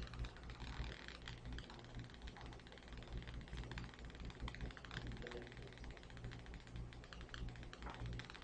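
Faint, irregular typing clicks on a computer keyboard over a steady low electrical hum.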